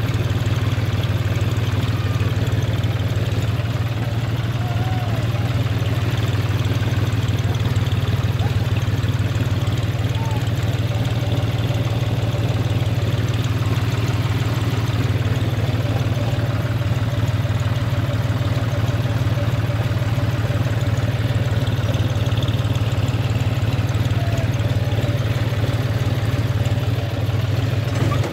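John Deere tractor's diesel engine running steadily at low revs while the tractor creeps along a dirt track, with an even, fine-pulsed chug.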